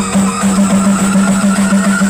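Loud electronic music with a low tone pulsing about four times a second and a high tone rising slowly.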